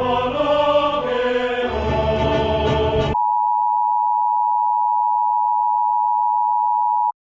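Choral music with a low drone cuts off abruptly about three seconds in. A single steady high beep-like tone from a mock emergency-alert broadcast replaces it, holds for about four seconds, then stops dead.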